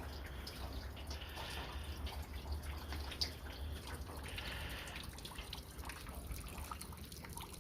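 Meltwater from thawing roof ice dripping and trickling down into a basin set beneath. Many irregular drops, with one sharper drop a little after three seconds in.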